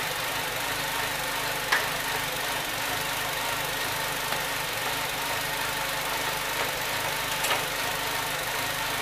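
Nissan car engine idling steadily, warmed up, with two light clicks, about two seconds in and near the end, as multimeter test leads are set against the battery terminal and metal.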